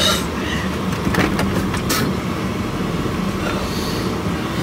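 Car heater blower turned up to full, a steady rushing hiss with a low hum filling the cabin.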